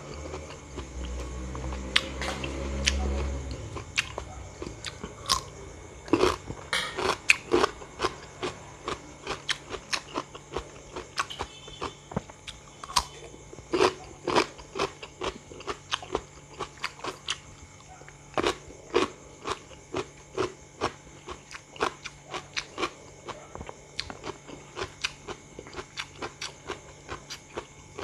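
Crunchy bites and chewing of raw watermelon or cucumber, close to the microphone, in a steady run of sharp crunches about one or two a second. A low rumble runs under the first few seconds.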